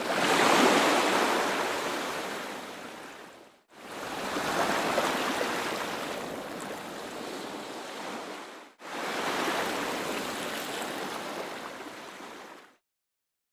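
Ocean surf: three rushes of breaking waves, each swelling quickly and fading away over a few seconds, with short breaks between them.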